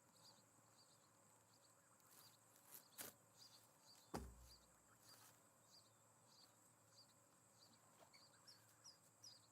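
Faint outdoor ambience at a nest camera, with a high chirp repeating about twice a second. A sharp knock comes about three seconds in, and a louder knock with a low thump about a second later.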